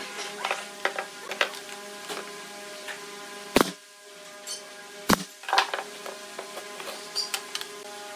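Pneumatic brad nailer firing two sharp shots about a second and a half apart, driving brads into a pine board joint. Lighter knocks and clicks of the boards being handled and set on the bench come before and after.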